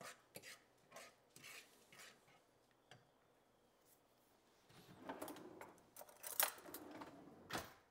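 Light clinks and scrapes of a metal fork against a skillet as a cream sauce is stirred, then a quiet spell and a few louder clatters of kitchenware near the end.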